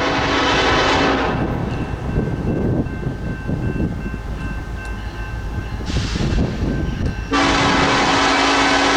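Nathan K5LLA five-chime air horn on the lead BNSF SD70ACe locomotive blowing for a grade crossing. A long blast stops about a second in, and another long blast starts about seven seconds in. Between the blasts is the rumble of the approaching train. The horn echoes loudly off a hillside and a long warehouse wall.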